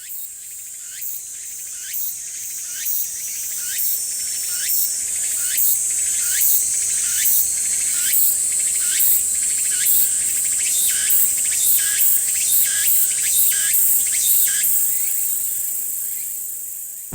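Tsukutsukuboshi cicada (Meimuna opalifera) singing: a shrill buzzing song with a short phrase repeated a little faster than once a second. It swells up at the start and fades out near the end.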